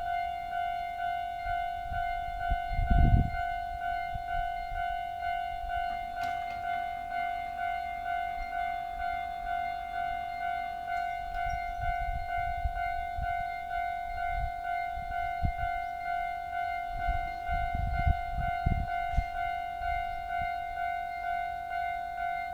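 Japanese railway level-crossing warning bell cutting in suddenly and ringing on in a steady repeating electronic chime. It is the standard crossing tone, but the two signal heads are out of step, one of them ringing at a very slow tempo.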